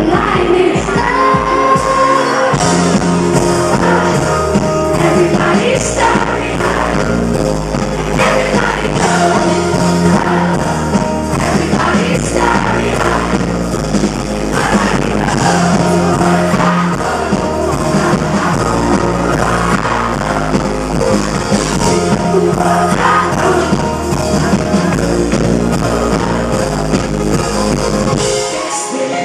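Live electropop band performance with singing, synths, bass and drums, heard loud from within the audience in a concert hall. The heavy bass drops out briefly near the end.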